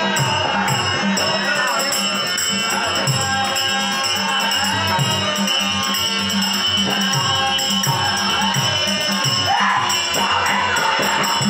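Live folk-theatre music: a two-headed barrel drum beats a rhythm while small hand cymbals keep time, over a harmonium and a male voice singing.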